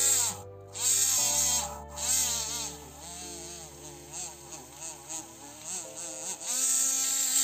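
Battery-powered pen-style mini-grinder (BG W-05) running at high speed and sanding a brass-plated electroformed bonsai tree: a thin buzzing whine whose pitch dips and recovers as the bit is pressed against the metal. Grinding hiss comes in bursts at the start, about a second and two seconds in, and near the end.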